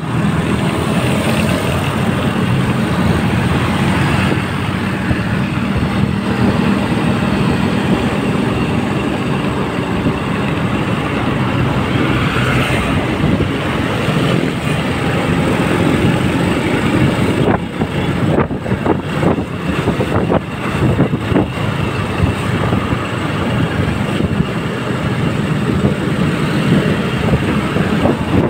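Motorcycle riding through city traffic, its engine and road noise heard from the rider's seat, with wind buffeting the microphone. The wind noise turns choppy for a few seconds past the middle.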